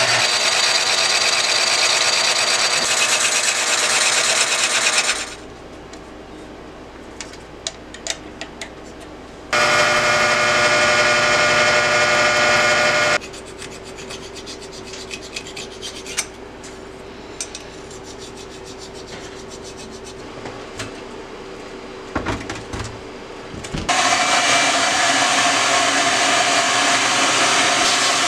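A drill press spinning a small abrasive disc against the cast-iron fins of a Panhead cylinder, grinding steadily for about five seconds and again for a few seconds midway. In between there are only light clicks and scraping from handwork on the cylinder. About four seconds before the end a sandblast cabinet starts up with a steady, loud hiss of blasting.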